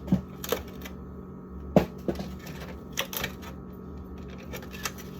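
Egg cartons and other items being handled in a refrigerator: a scattered series of light clicks and knocks, several bunched in pairs.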